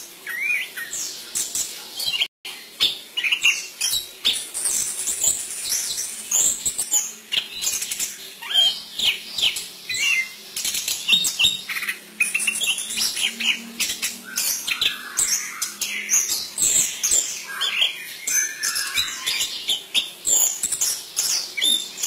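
Caged chestnut-capped thrush singing without pause: a dense, rapid stream of high chirps, trills and short whistled phrases, rich in notes mimicked from other birds.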